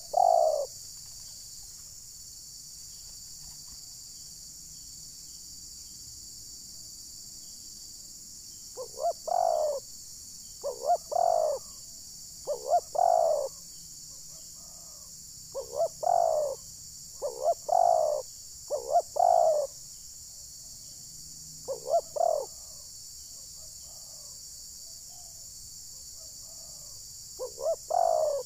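Spotted doves cooing in short repeated phrases. After a pause of several seconds, a run of phrases comes every second or two, and one more comes near the end, over a steady high hiss.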